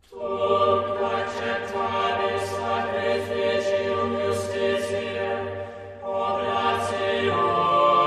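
Choral music: voices singing slow, sustained chords, beginning abruptly after a pause, with a short break about six seconds in before the next phrase.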